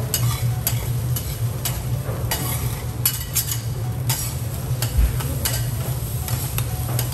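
Metal spatulas scraping and clacking on a teppanyaki steel griddle as fried rice is turned and chopped, in irregular strokes over the sizzle of frying. A steady low hum runs underneath.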